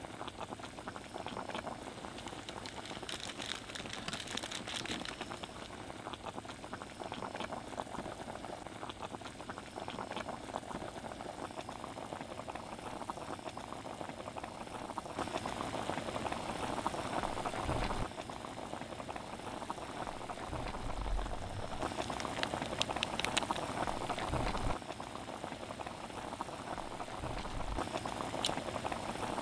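Water, then instant-noodle broth, bubbling at a steady boil in a shallow steel pan over a camp gas stove, the bubbling growing louder in stretches past the middle.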